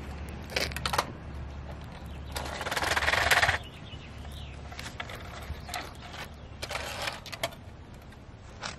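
Die-cast First Gear front loader toy garbage truck pushed by hand across a concrete sidewalk: its wheels roll and scrape in a few short runs, the longest and loudest about two and a half seconds in, with scattered clicks and knocks.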